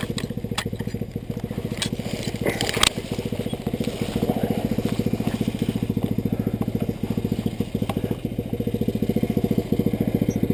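Yamaha Rhino UTV's single-cylinder engine idling steadily with an even pulse. A few sharp clicks and knocks come in the first three seconds.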